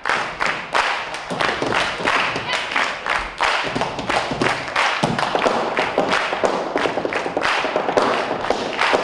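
Quick, sharp percussive strikes in a steady rhythm, several a second.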